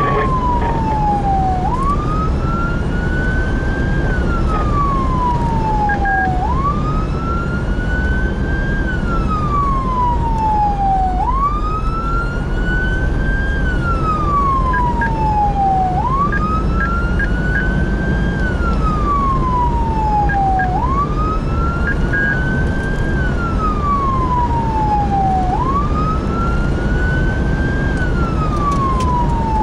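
Electronic emergency-vehicle siren on a wail, its pitch rising and falling in a repeating cycle about every five seconds. It is heard from the moving response vehicle, over a steady rumble of road and engine noise.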